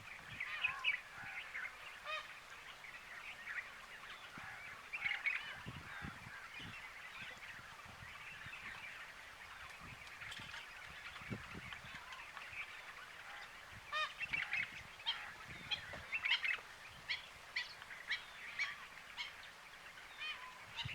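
A flock of birds calling, many short calls overlapping, busiest a little past the middle.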